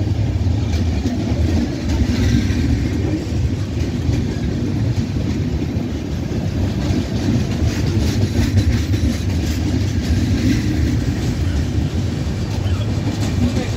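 Charminar Express passenger coaches rolling past along a platform: a steady low rumble of wheels on rails, with occasional faint clicks over the rail joints.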